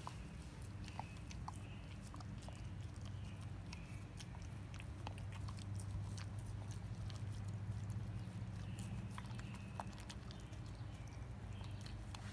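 German Shepherd gnawing a raw beef rib bone: scattered clicks and crunches of teeth on bone, over a steady low hum.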